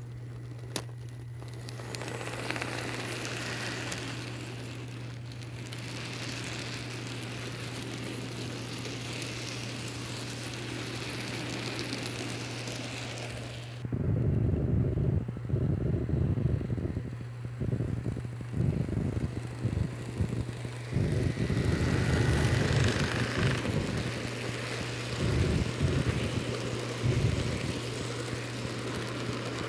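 Kato N scale Union Pacific FEF-3 model steam locomotive and its freight cars running on track, over a steady low hum. From about halfway the train passes close by with loud, uneven rumbling and clatter of wheels on the rails, broken by short gaps.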